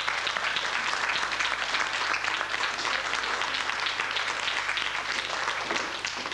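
An audience clapping in a hall, a dense, steady patter of many hands that eases slightly near the end.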